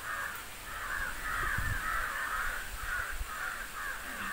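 Crows cawing over and over, several harsh caws a second in a continuous run, with a soft low thump about a second and a half in.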